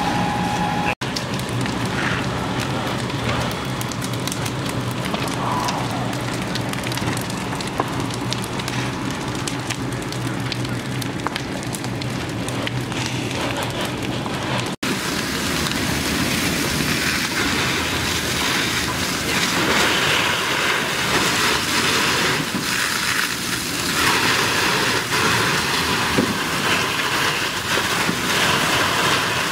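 A large farm building on fire, burning and crackling as a steady noisy hiss. After a cut about halfway in, a fire hose's water stream spraying onto the blaze joins in, and the hiss gets brighter and a little louder.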